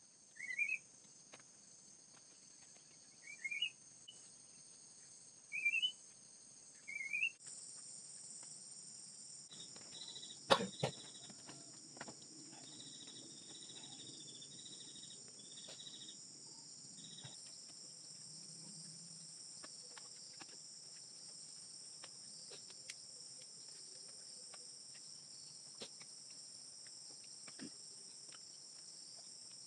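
A steady high-pitched chorus of crickets and other insects. Four short rising calls come in the first seven seconds, and there is one sharp knock about ten seconds in.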